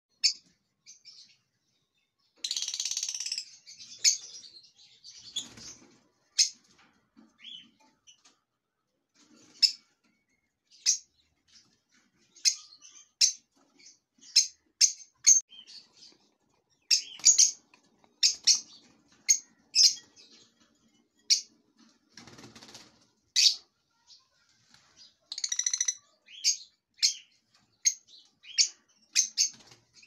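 Lovebird chicks giving short, high chirps over and over at an uneven pace, with a few longer, harsh calls near the start and near the end.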